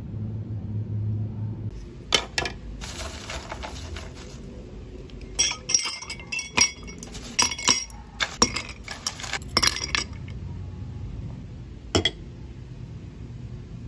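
Ice cubes and a stirrer clinking against a glass mug: a run of sharp clinks for about eight seconds, then one last clink near the end.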